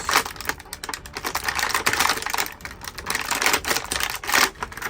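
Stiff plastic packaging crackling and clicking in quick, irregular bursts as it is handled and the figure's extra hands are worked out of the tray.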